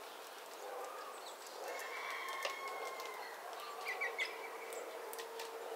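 Rural bird sounds: a rooster crowing with one long drawn-out call from about two seconds in, and small birds chirping briefly about four seconds in, with a few light clicks.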